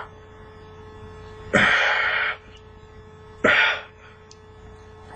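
A man hissing out hard, pained breaths twice, each burst lasting under a second. A steady electrical hum runs underneath.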